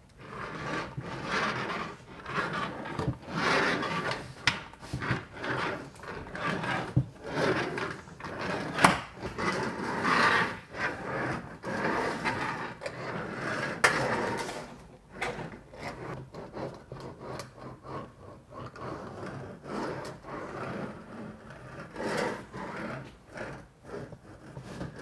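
Woku roller bender's wheels rolling back and forth along the edge of a standing seam metal roofing panel, bending the edge up a little with each pass. Each pass makes a scraping, rumbling rub, with a few sharp clanks; the passes get quieter and shorter in the second half.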